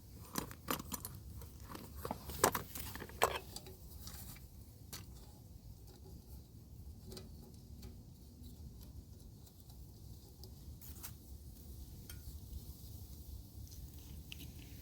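Wind buffeting the microphone as a low rumble, with a handful of sharp clicks and knocks in the first four seconds and a few faint ticks after.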